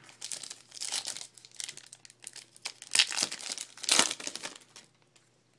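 Foil wrapper of a 2012 Panini Prestige football card pack crinkling and tearing as it is ripped open by hand, with the two loudest rips about three and four seconds in.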